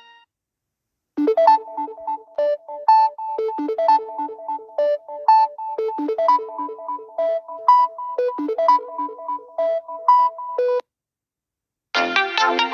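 A Samsung Galaxy A30 ringtone playing: a synthesized melody of short, quick notes that starts about a second in and stops cleanly near the end. The next ringtone begins just before the end.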